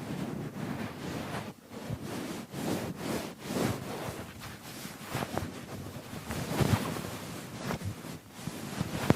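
Computer keyboard being scrubbed by hand: a run of irregular, rough swishing strokes with no steady rhythm.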